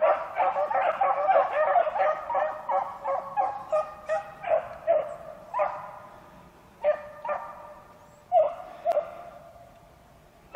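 A pack of beagles baying as they work a rabbit's scent. A dense chorus of overlapping bays in the first few seconds thins to scattered single bays and dies down near the end.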